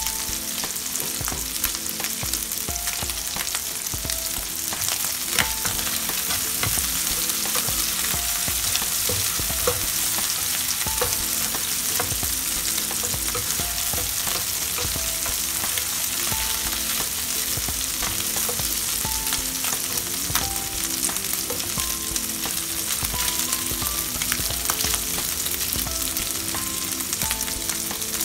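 Fresh shrimp and chopped spring onion sizzling steadily in hot cooking oil in a nonstick frying pan. About halfway through they are stirred around the pan, with small taps and scrapes against it.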